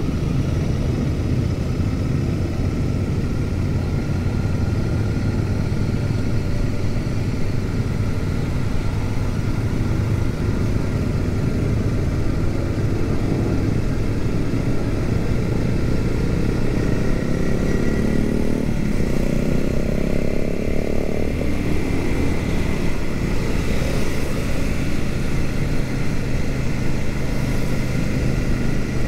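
Royal Enfield Super Meteor 650's parallel-twin engine running steadily at riding speed, heard from the saddle among a convoy of other motorcycles. From about ten seconds in an engine note rises steadily, then falls away just after twenty seconds.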